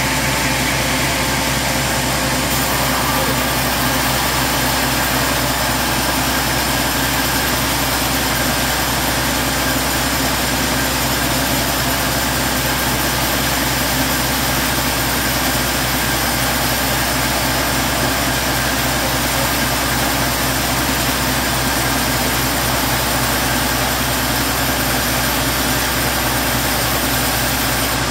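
Log band sawmill running steadily: the drive and blade hum at an even level, with no cut into the wood under way.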